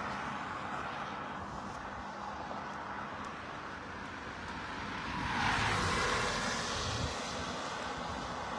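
Steady distant drone of a plane flying over. About five seconds in it swells louder in a passing whoosh that falls in pitch, then settles back.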